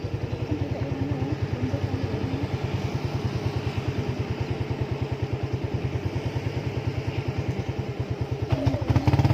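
Motorcycle engine running with a steady, even low pulse of about ten beats a second, growing louder near the end.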